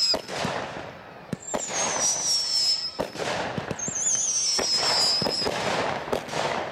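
Aerial fireworks display: sharp bangs of bursting shells amid a crackling hiss, with two long high whistles falling in pitch, each about a second and a half.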